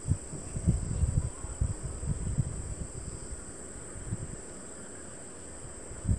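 Dull, irregular footsteps and handling bumps from a phone carried by someone walking, easing off after about four seconds, over a steady high-pitched hiss.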